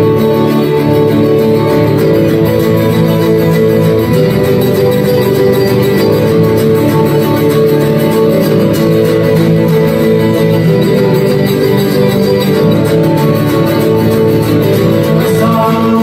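Acoustic guitar strummed in a steady rhythm, chords ringing and changing, with no voice.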